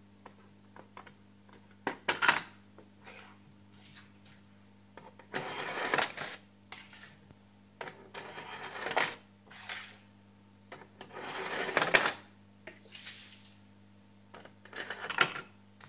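Swiss franc coins set one at a time on a 3D-printed coin sorter. Each rolls rattling down the slotted ramp for about a second and clinks as it drops onto the coin stack in its tube, four times in all.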